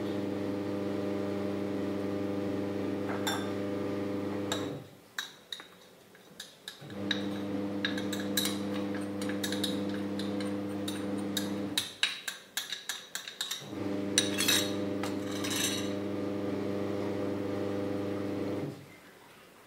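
Light clinks and taps as a mesh sieve of flour is knocked against a glass mixing bowl, over a steady low hum that comes in three stretches of about five seconds with short breaks between.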